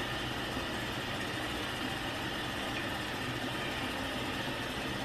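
Steady mechanical hum with an even hiss, unchanging.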